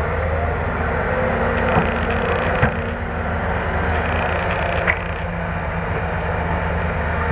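Heavy diesel engine and hydraulics of a Cat hydraulic excavator running steadily under load as it digs coal and swings the bucket over a dump truck, with three sharp knocks about two, three and five seconds in.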